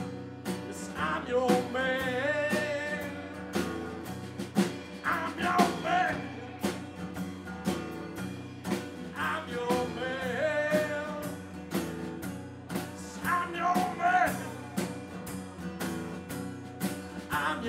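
Live music: strummed acoustic guitar with drums, and a man's voice singing in phrases that come about every four seconds.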